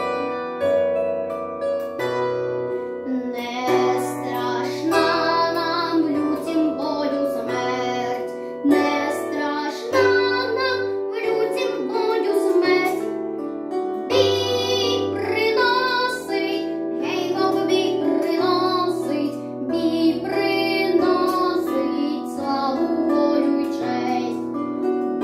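A boy singing a Ukrainian song over an instrumental backing track of plucked strings and a bass line. The singing comes in about three seconds in, after a short plucked-string passage.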